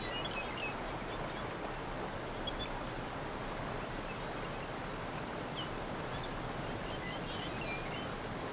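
Steady outdoor background noise, an even rushing hiss, with faint bird chirps near the start and again a few times past the middle.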